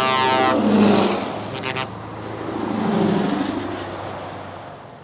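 Two Scania S770 trucks with V8 engines, each pulling a long trailer, drive past one after the other at motorway speed. Engine and tyre noise swells and fades twice, loudest about a second in and again about three seconds in. The engine note drops in pitch as the first truck goes by.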